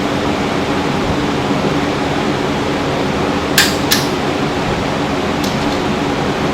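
Steady fan-like hum and hiss, with two sharp metallic clicks a few tenths of a second apart about three and a half seconds in and a faint tick later. The clicks come from work on the exhaust mounting hardware.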